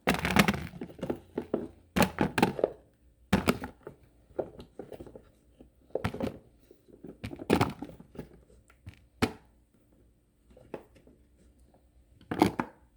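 Red potatoes being dropped one at a time into a container, making a run of separate thunks a second or two apart.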